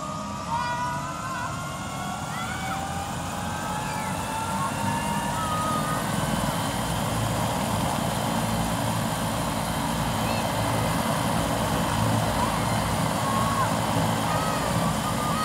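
Helicopter turbine engine running up after start: its whine rises in pitch over the first few seconds as the rotors spin up, and the sound grows steadily louder.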